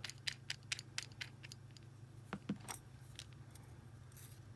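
Small metal clicks and taps of stainless steel rebuildable tank atomizer parts and a precision screwdriver being handled: a quick run of clicks in the first second and a half, then a few scattered ones, over a faint low hum.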